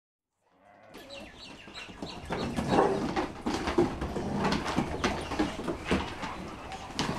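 Dogs playing on a wooden deck: a busy clatter of claws clicking and scrabbling on the boards, mixed with short animal vocal sounds. It fades in about half a second in and gets louder over the next two seconds.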